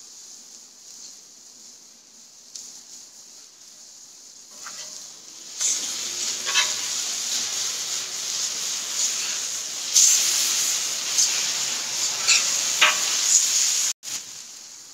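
Sliced chicken breast sizzling on a hot Pit Boss flat-top griddle. It is faint at first, then loud from about five and a half seconds in as the strips are turned with a metal spatula, with scrapes and clicks of the spatula on the steel cooktop. The sound cuts off suddenly near the end.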